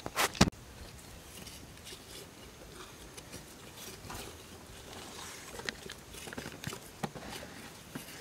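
Hands digging and scraping in wet mud and grass at a crab burrow: scattered soft scratches and crackles, with two sharp knocks in the first half second that are the loudest sounds.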